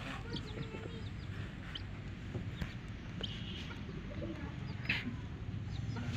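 A group of baby chicks peeping: many short, high chirps scattered throughout, with one louder chirp about five seconds in, over a steady low hum.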